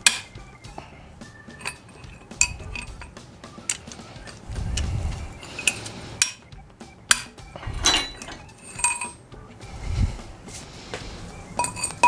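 Socket wrench and breaker bar clinking against the connecting-rod cap bolts of an R53 Mini Cooper S engine block as they are loosened: scattered sharp metal clinks and clanks, some briefly ringing, with a few dull knocks.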